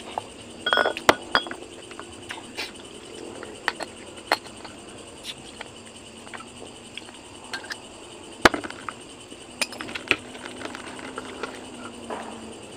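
Close-up eating and drinking: scattered sharp clicks, knocks and clinks of a glass and a bottle being handled, with mouth sounds of drinking and eating. The loudest knock comes about eight and a half seconds in.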